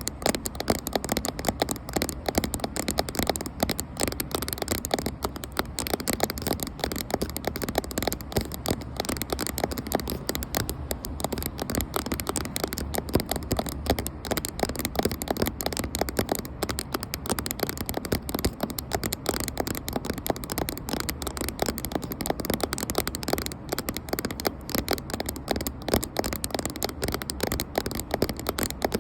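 Rapid, continuous tapping on a camera, many small taps a second without a pause.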